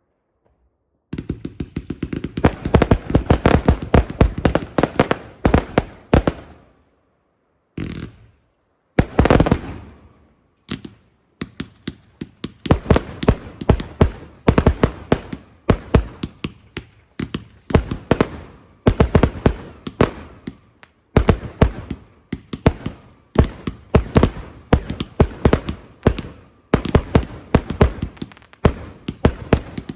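Fireworks display: rapid volleys of bangs and crackling, several reports a second, starting about a second in, with two brief lulls.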